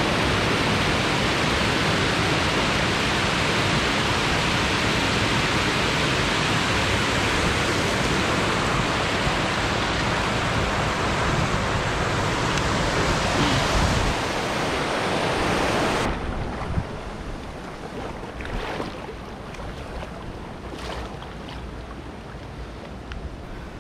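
Steady rush of a small mountain stream's running water close by. About 16 seconds in it drops suddenly to a quieter, softer water sound with a few faint knocks.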